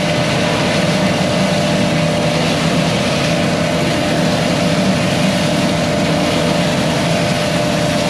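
Heavy diesel engines of a ready-mix truck and a concrete pump running steadily at the pump hopper, with a dense even rushing noise over them.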